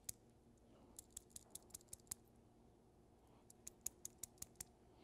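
Light, sharp clicking from a caged needle roller bearing being turned by hand as it is pushed through a palmful of grease: two quick runs of clicks, one about a second in and another after about three and a half seconds.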